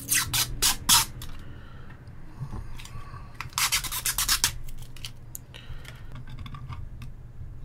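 Protective plastic film being picked at and peeled off a plexiglass (acrylic) panel. There are a few short crackling strokes in the first second and a longer peel at about three and a half seconds, followed by lighter rustling and small clicks.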